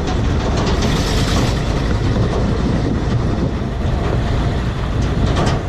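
1974 Ford F600 grain truck's Ford 361 V8, fed by a Holley 850 four-barrel carburettor, running steadily on the road and described as a good runner. Heard from outside the cab as a loud, even rumble with heavy wind noise on the microphone.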